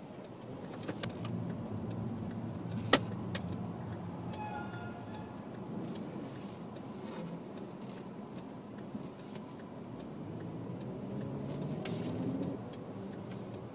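Steady low road and engine noise heard from inside a moving car, with a sharp click about three seconds in.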